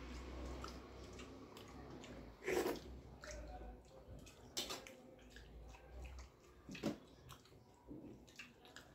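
Eating by hand from a steel plate: fingers squishing and scraping rice and curry across the metal. There are faint wet sounds and a few sharp clicks, the loudest about two and a half seconds in.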